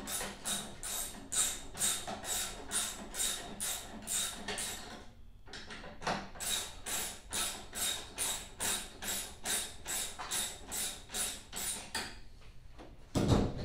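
Ratchet wrench clicking in steady strokes, about three a second, driving bolts into tight-fitting holes. It stops briefly about five seconds in, then starts again, and a single heavy thump comes near the end.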